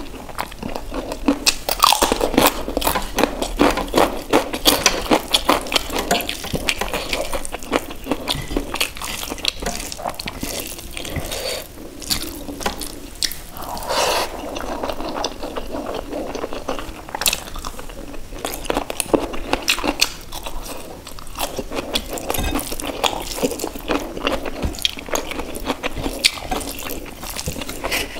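Mukbang eating sounds: wet chewing of rice mixed with paneer gravy, eaten by hand, with crunches of roasted papad and fingers mixing rice on the plate, a dense run of small irregular clicks and crackles.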